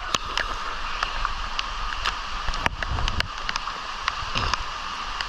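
Steady rushing of river water, with scattered sharp drips and small splashes.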